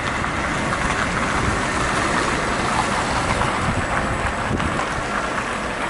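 Steady rushing of wind over the microphone mixed with the rolling noise of an electric unicycle's tyre on pavement while riding.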